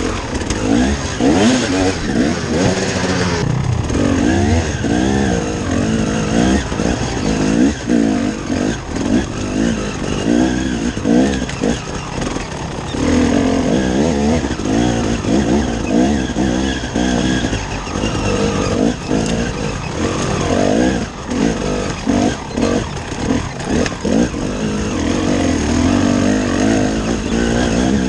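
KTM enduro dirt bike's engine revving up and down again and again as the throttle is worked, pulling the bike up a steep, leaf-covered forest trail.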